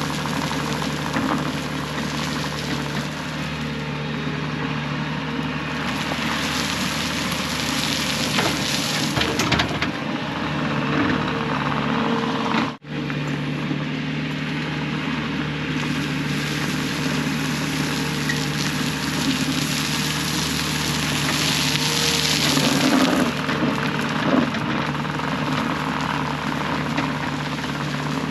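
Diesel engine of a piece of digging equipment running steadily, with a constant hum and a noisy clatter over it. The sound cuts out for an instant about thirteen seconds in, then carries on the same.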